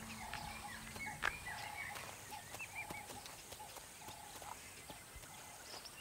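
Faint bush ambience: a bird repeats a short low call about once a second, with higher chirps from other birds and scattered soft ticks.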